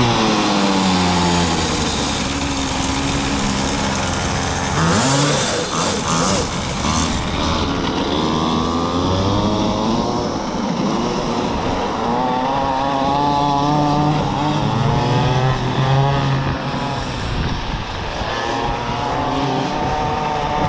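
Small single-cylinder gasoline engine of a kids' mini kart running, its pitch dropping at the start and then wavering up and down unevenly. The engine is said to be bogging, which is put down to a carburetor that needs cleaning after the kart sat for about a year.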